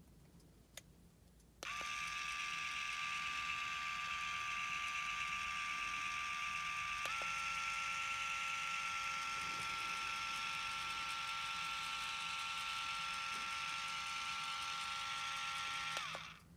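Small electric motor of an automatic nail clipper starting up and running empty with a steady high whine. About halfway through its pitch steps up a little, and it stops suddenly near the end.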